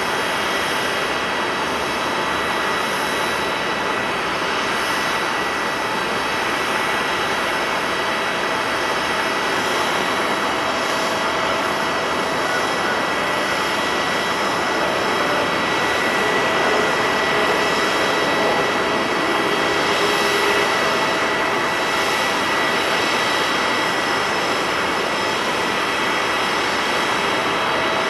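Boeing 777-300ER's GE90-115B turbofan engines running at taxi power as the airliner taxis: a steady rushing noise with a high, steady whine, growing slightly louder partway through.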